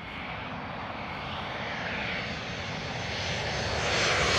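Boeing 737 Classic's CFM56-3 turbofan engines on landing approach, a steady jet engine noise growing louder as the airliner comes in low overhead.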